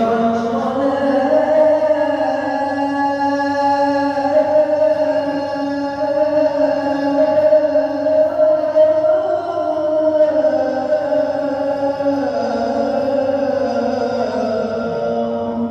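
A man's voice chanting in the mosque: one long, unbroken melodic line of held, slowly ornamented notes, the pitch rising a little about ten seconds in and stepping back down near the end.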